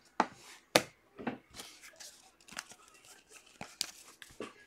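Basketball trading cards being shuffled and slid against each other by hand: a string of short, irregular rustles and swishes.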